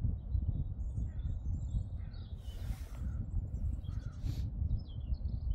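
Birds calling on and off in short chirps over a steady low rumble of wind on the microphone, with two brief rushes of noise about two and a half and four and a half seconds in.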